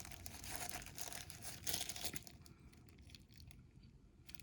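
Packaging crinkling as it is handled, densest in the first two seconds and then fainter.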